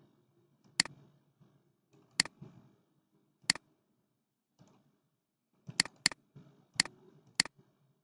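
Computer mouse clicking: single sharp clicks a second or so apart, then a quicker run of four or five near the end.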